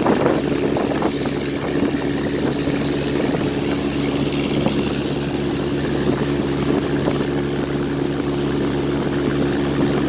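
Motorboat engine running at a steady speed, heard from on board, with the rush of water and wind underneath.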